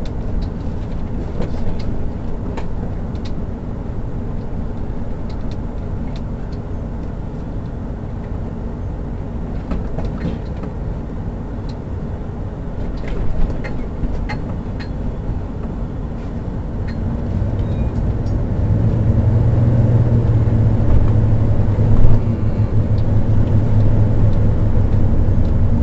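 Engine and road noise heard from inside the cab of a Class A motorhome being driven, with scattered clicks and rattles. About two-thirds of the way through, the engine drone grows louder and steadier, and there is one sharp thump about 22 seconds in.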